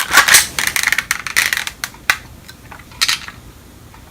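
Clicking and clattering of a plastic Umarex Walther PPQ spring airsoft pistol being handled, a busy run of clicks and rattles over the first two seconds, then single sharp clicks about two and three seconds in.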